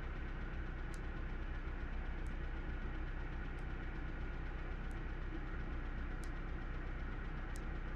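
1998 Honda CR-V's 2-liter four-cylinder engine idling steadily with a dead miss on cylinder 3, the rough idle behind its misfire code.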